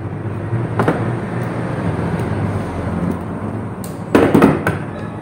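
Hands handling electrical wiring parts: a click about a second in, then a quick clatter of knocks near the end. A steady low hum runs underneath.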